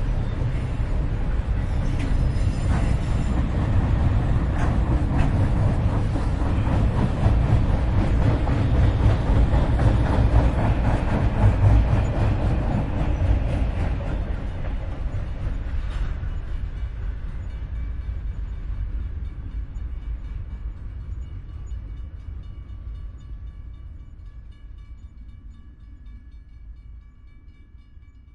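Freight train passing close by, a heavy rumble with the clatter of wagons rolling over the rails. Over the second half it fades steadily as it moves away, leaving a few faint, steady high tones.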